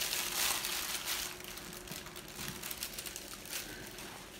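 Wax paper crinkling and rustling under hands pressing and working around the wrapped taffy. It dies down after about a second into a few soft handling noises.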